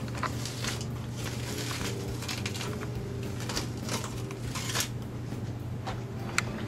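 Flexible rubber rock mold being pressed onto wet plaster and peeled away: irregular soft rustling and scraping strokes over a steady low hum, with a sharp click about six seconds in.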